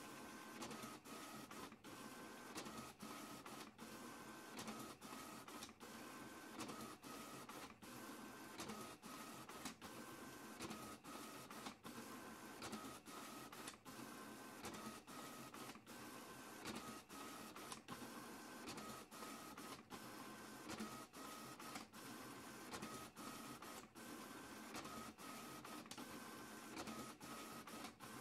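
Printer running and printing page after page, with short high motor whines that come back again and again in a regular pattern over a steady mechanical whirr.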